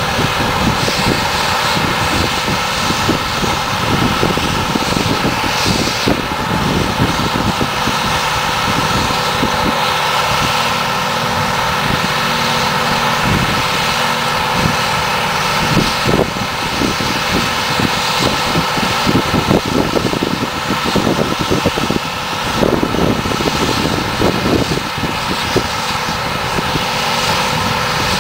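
New Holland 2025 self-propelled forage harvester running under load while chopping grass silage: a loud, steady machine drone with a high whine held throughout, and a tractor with a silage wagon running alongside.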